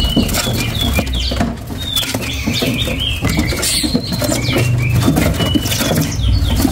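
Caged songbirds chirping with many short, high whistled notes, some in quick runs, over a low rumble and scattered clicks.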